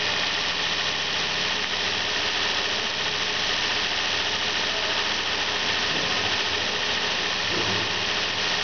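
2002 Nissan Altima's 3.5-litre V6 engine (VQ35DE) idling steadily, heard close up from over the open engine bay, with a strong high hiss over the running engine.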